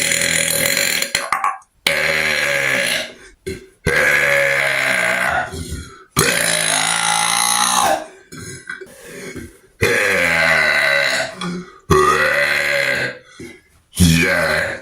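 A man belching loudly, one burp after another: about seven long, drawn-out burps of one to two seconds each, with short gaps between them and a few fainter sounds in a longer pause midway.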